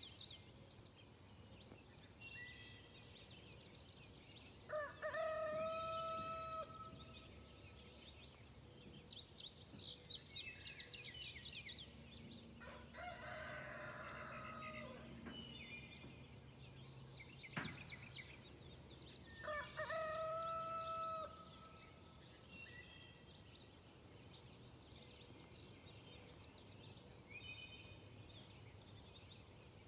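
Rooster crowing, clearly twice, about five seconds in and again about twenty seconds in, with songbirds trilling high in between.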